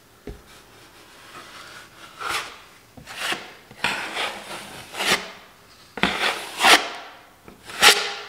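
Steel drywall knife scraping across wet joint compound and tape on a wall, in a series of separate strokes, roughly one a second, with a sharp click near the start.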